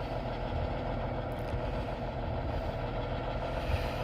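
Heavy tow truck's engine running steadily, a low, even rumble.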